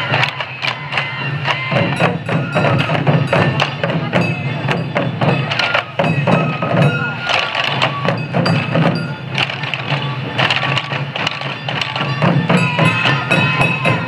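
A troupe of sansa taiko drums beaten together with sticks in a fast, steady parade rhythm, with a bamboo flute melody above it.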